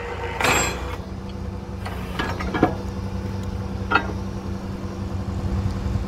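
Truck-mounted borewell drilling rig's engine running steadily, with metal clanks of drill pipe and tools being handled at the drill head: a short rattle about half a second in, then single sharp clinks around two and a half and four seconds in.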